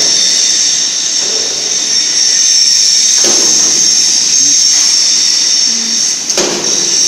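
A steady, loud, high-pitched hiss of workshop background noise, with two brief fainter sounds about three seconds in and near the end.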